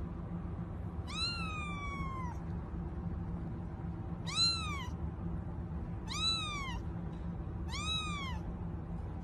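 A young kitten meowing four times in high-pitched mews that rise and fall in pitch. The first is longer and trails off downward; the other three are short and come about two seconds apart. A steady low hum runs underneath.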